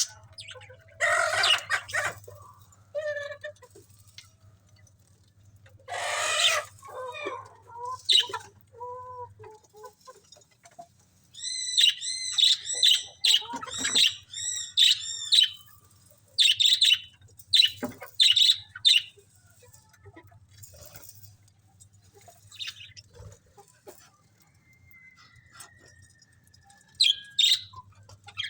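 Budgerigars chirping in scattered short calls, with a quick run of repeated rising-and-falling chirps about halfway through. There are a couple of brief rustling noises in the first part.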